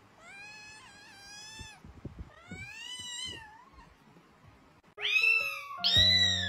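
A kitten meowing twice, two drawn-out cries of about a second each. About five seconds in, loud music with a bass line starts abruptly.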